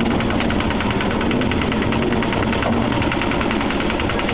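Lister autotruck's small diesel engine running steadily under way, with a fast, even beat.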